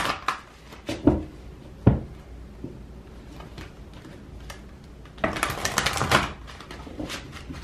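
A deck of oracle cards being shuffled by hand. A quick flurry of card flicks comes at the start, then a couple of single knocks, then a longer run of rapid card flicking about five seconds in.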